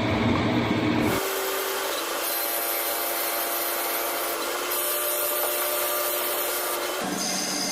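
CNC machine running and cutting: a steady grinding machine noise with a few held tones. The sound changes abruptly about a second in and again near the end.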